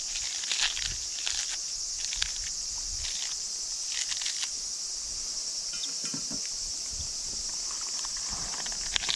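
A steady, high insect chorus runs throughout, with a series of short crisp rips as cabbage leaves are torn apart by hand, most of them in the first half and one more near the end.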